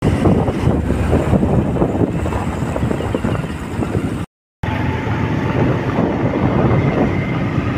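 Road noise heard while travelling in a moving vehicle: a steady, rough rush with wind buffeting the microphone. It drops out to silence for a moment about four seconds in, then carries on.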